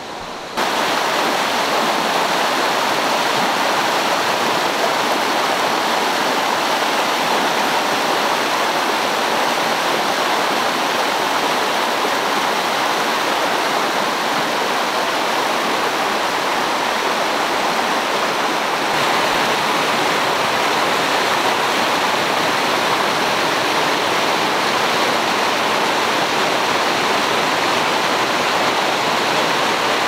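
Mountain stream rushing over rocks in small rapids: a steady, loud rush of water. It jumps up in level about half a second in and changes slightly in tone about two-thirds of the way through.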